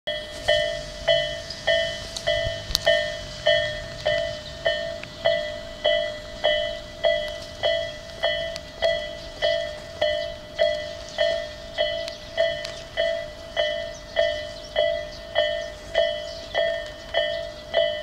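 Railway level-crossing warning bell ringing steadily, about 1.7 strikes a second, each a clear ringing tone that fades before the next. The barriers are down and the light is flashing: a train is approaching.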